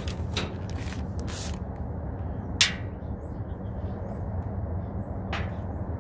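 Handling of a paint can and a plastic bag on a metal table: a sharp click about two and a half seconds in and a fainter one near the end, over a steady low rumble.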